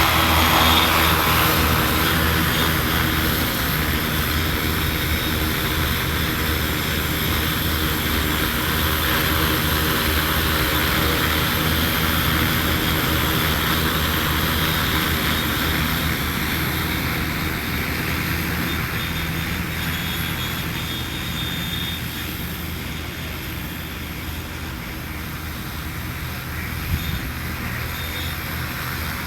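A 15-litre agricultural spraying multirotor drone in flight: a steady propeller drone with several layered motor tones over rushing air, getting gradually quieter.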